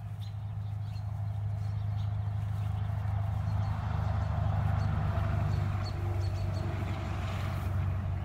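A steady low drone, like a motor running, with a hiss that swells through the middle and latter part.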